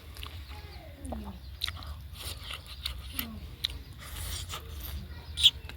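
Close-miked chewing and mouth sounds of a person eating, with scattered wet smacks and clicks.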